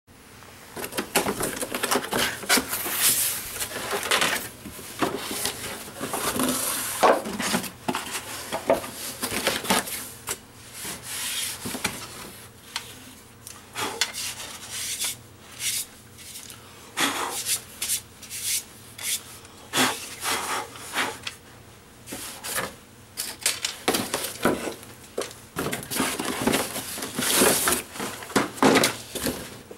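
Cardboard box being unpacked: flaps scraping and rubbing as they are folded back, and moulded pulp packing inserts pulled out and set down, in irregular scrapes, rustles and knocks.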